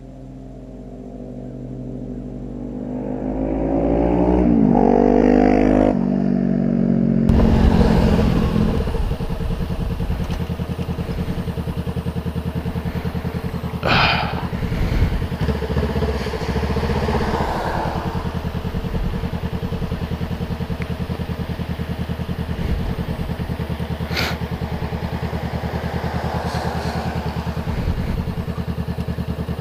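Honda CBR500R's parallel-twin engine running steadily at low revs, heard from a camera mounted on the bike while it rolls slowly in traffic and waits at a light, with two sharp clicks partway through. It is preceded by about seven seconds of a different pitched sound that swells and glides in pitch, then cuts off abruptly.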